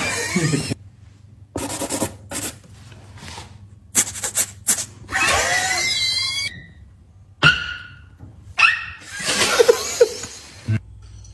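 Men's mouth and voice sounds from a group of beatboxers: short hissing bursts, clicks and voiced yelps with sliding pitch, broken by pauses, mixed with laughter.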